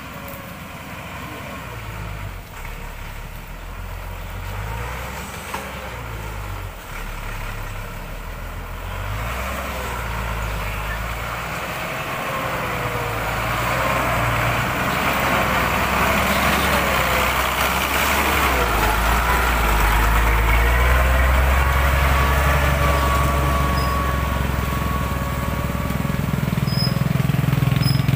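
Engine of a loaded modified logging truck running over a rough road. Its speed shifts up and down in the first third, then from about a third of the way in it gets steadily louder as it pulls harder, holding a strong low note through the last part.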